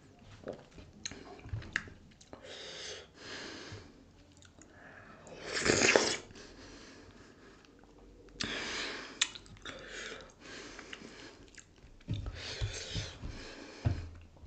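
Close-miked chewing and wet mouth sounds of someone eating dhido with sisnu (nettle) curry, broken by several noisy breaths, the loudest about six seconds in.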